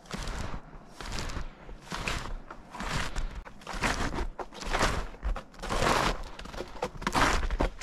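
Snowshoe footsteps crunching and compressing fresh powder snow, one step about every second in a steady walking rhythm.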